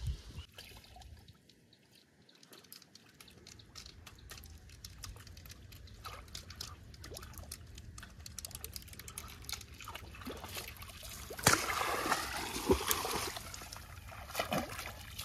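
Water trickling and splashing in a shallow pond, with a run of louder splashes about eleven to thirteen seconds in.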